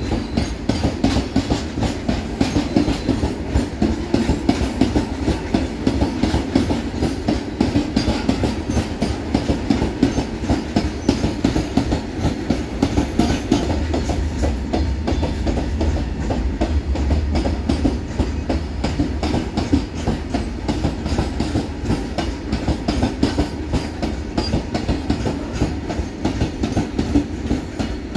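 Loaded open freight wagons of a long goods train rolling past, their wheels clattering in a steady dense run of knocks over the rail joints, with a constant low rumble.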